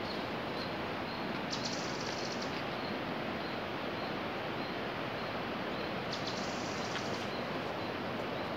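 Forest ambience: a steady, even rushing noise with faint high chirps repeating about three times a second. Two short, high buzzing trills come about one and a half and six seconds in.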